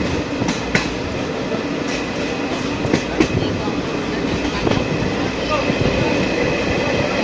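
Passenger train running along the track, heard from an open carriage doorway: a steady rumble of wheels on rails with scattered sharp clicks, most of them in the first few seconds, and a faint steady high whine.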